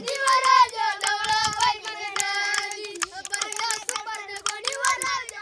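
A child's voice sings a band tune in long held notes over rapid sticks beating on a wooden log stump and a wooden box: improvised percussion copying a village banjo band.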